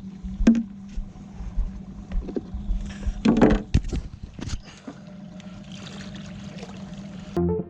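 A boat on the water: a steady low hum and rumble with scattered knocks, and a louder splash or thump about three and a half seconds in.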